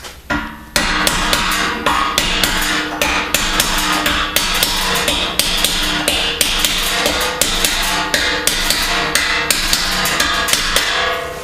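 Hammer driving a hardened cold chisel through sheet metal clamped in a vise, in quick, steady blows several a second, with the metal ringing under them.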